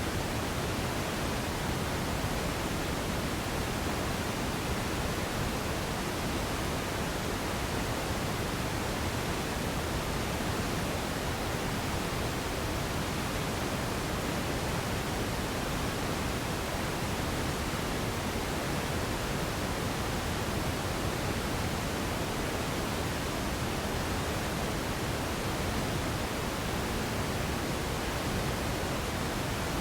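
Radio static: a steady, even hiss spread across low and high pitches alike, with no tones, crackles or changes in level.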